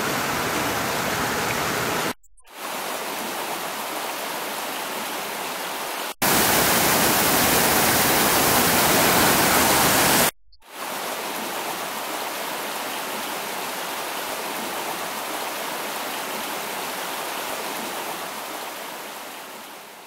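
Rushing water of a mountain stream and waterfall, a steady hiss heard in several clips cut together. It is loudest in a stretch from about six to ten seconds in and fades out at the end.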